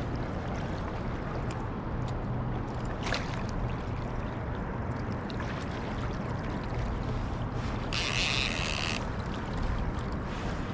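Steady rush of river water and wind around an anchored boat, with a low steady hum underneath and a brief, brighter hiss about eight seconds in.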